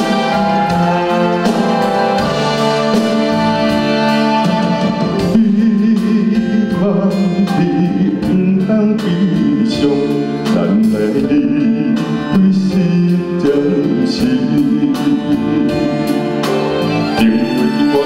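A male bass singer singing a slow ballad live into a microphone with band accompaniment. The instrumental backing plays alone for about the first five seconds before the low voice comes in.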